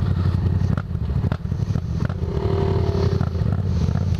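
Motorcycle engines idling close by with a steady low, pulsing throb. About two seconds in, a higher engine note briefly rises and falls, and a couple of sharp clicks come about a second in.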